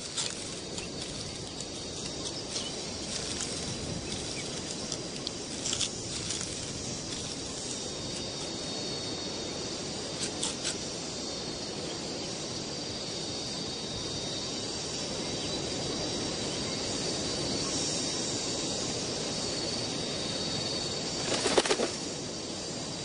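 Steady outdoor nature ambience: an even hiss with a high, unchanging drone. A few short flurries break through, the loudest a little before the end.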